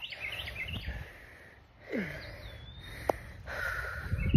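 A songbird chirping in quick repeated phrases at the start and again at the end, over the low rumble of a phone being carried and handled while walking, with a sharp click about three seconds in and a thump at the end.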